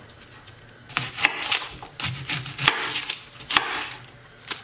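Dry papery garlic skins crackling as cloves are peeled by hand, then a knife cutting through an onion onto a wooden cutting board, in irregular clicks and crackles.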